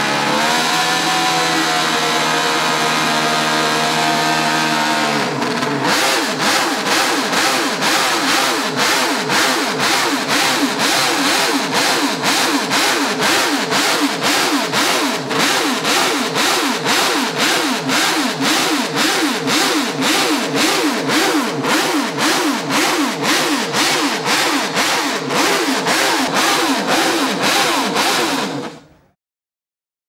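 Honda RC166 250 cc inline-six four-stroke racing engine running on the stand: it holds steady for about five seconds, then is blipped on the throttle over and over, about two sharp rev rises and falls a second.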